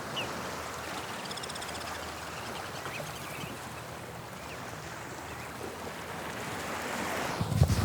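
Sea waves washing on a beach, a steady hiss of moving water, with a few faint bird chirps about a second in. Near the end, a gust of wind buffets the microphone with a low rumble.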